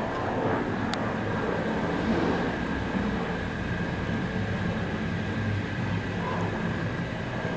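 Steady low droning rumble with a faint steady high tone above it, which the uploader takes for aircraft engine noise although no aircraft is in sight.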